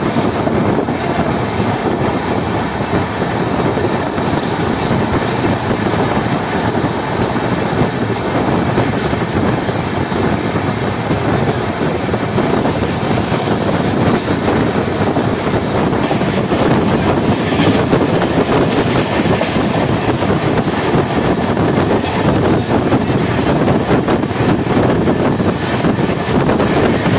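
Express passenger train running at speed, heard from inside a coach: a loud, steady rumble of the wheels on the rails.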